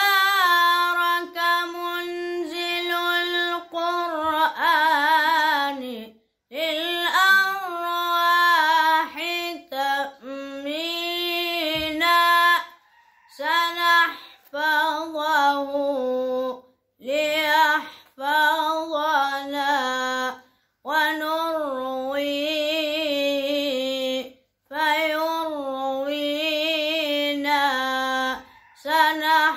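A boy's unaccompanied solo voice chanting an Islamic ibtihal, in long ornamented phrases with a wide, wavering vibrato. About half a dozen short breaks for breath separate the phrases.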